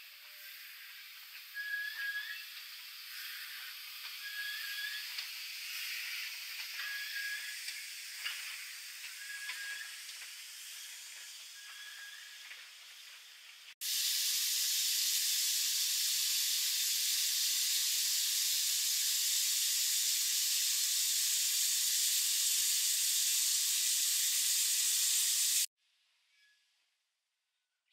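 Steam hissing from a century-old British steam locomotive: a softer hiss with short high chirps about every second and a half, then, after a sudden change about 14 s in, a loud steady rush of escaping steam for about 12 s that cuts off abruptly.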